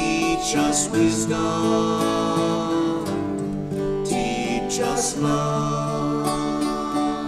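Acoustic guitars strumming and picking a gentle hymn accompaniment.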